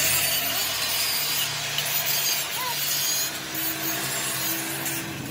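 Large angle grinder with an abrasive disc grinding down weld beads on a steel truck axle housing. It makes a steady, harsh grinding hiss.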